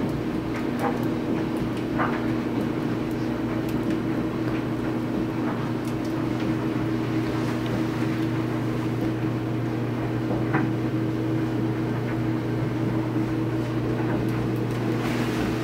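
A steady low mechanical hum, like a small fan motor, with a few faint clicks and light splashes in the water scattered through it.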